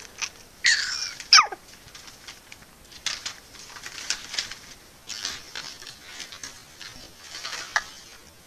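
Five-month-old baby squealing: a loud high-pitched squeal about a second in that ends in a steep fall in pitch, followed by a run of short smacking mouth noises.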